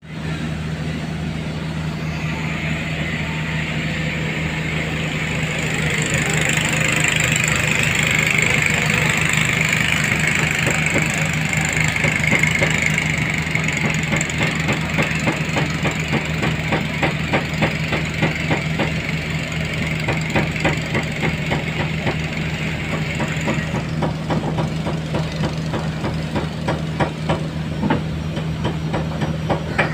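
RF-10 boat engine of a new skipjack fishing boat running on its test run: a steady low hum with a regular rapid knocking that becomes plainer about halfway through. A hiss sits over it until a few seconds before the end.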